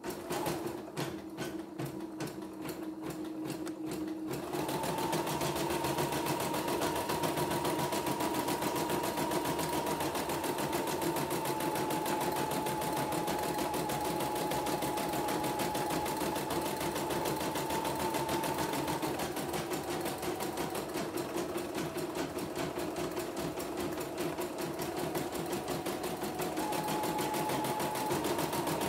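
CNY computerized embroidery machine stitching a test design after servicing, set to 450 stitches a minute: a few slow, separate stitches in the first four seconds or so, then a louder, fast and even needle clatter with a steady motor whine.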